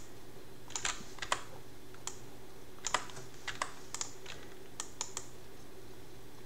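Irregular clicking at a computer: a dozen or so sharp clicks spread unevenly, over a faint low steady hum.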